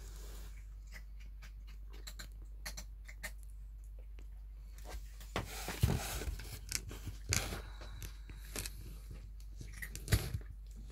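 Two three-week-old kittens play-fighting on a fleece blanket in a cardboard box: paws and bodies scuffle and rustle with soft clicks and taps. The scuffling gets busier about halfway through, with a louder bump about six seconds in and another near the end.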